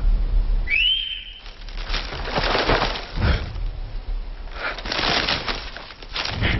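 Film sound effects: a brief high whistle about a second in, then repeated rustling and crunching of bodies moving through forest undergrowth.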